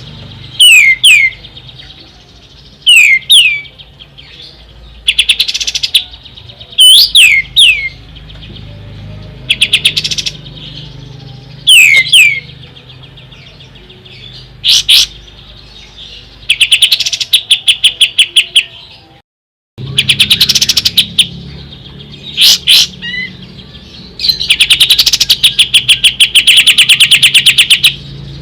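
Kapas tembak (pied triller) singing: repeated phrases of fast rattling trills and sharp downslurred whistled notes, a phrase every second or two, ending in a long trill several seconds long. The song cuts out for a moment partway through.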